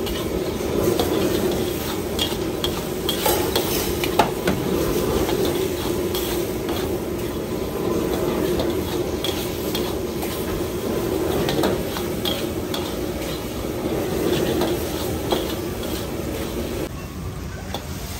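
Metal ladle scraping and clanking against a wok as noodles are stir-fried over steady sizzling. Near the end the sizzling drops away as the wok is lifted off the flame.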